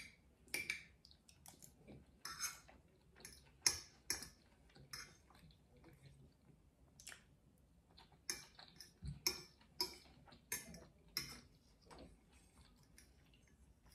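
Metal fork clinking and scraping on a plate while the last scraps of food are gathered up: irregular, sharp clicks.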